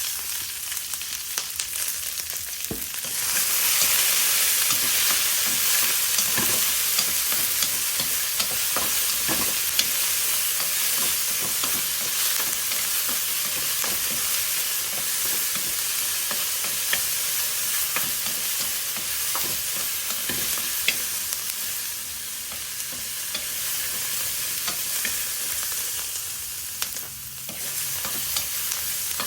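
Food sizzling in hot oil in a pan, with occasional scrapes and taps of a utensil stirring it. The sizzle grows louder about three seconds in and eases briefly near the end.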